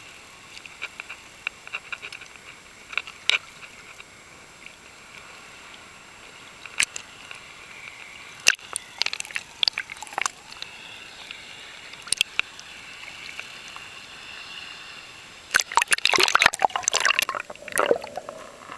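Water heard close to a snorkeler's camera at the surface and underwater: sloshing with scattered sharp clicks and crackles. A dense run of bubbling and splashing comes in the last few seconds.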